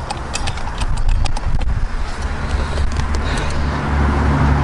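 Light metal clicks and taps from hand-fitting the go-kart carburetor's float bowl cover and screws. About two seconds in, a low engine rumble comes in and grows steadily louder.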